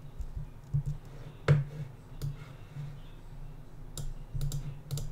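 Scattered clicks of a computer mouse and keyboard, a few at a time, over a low hum.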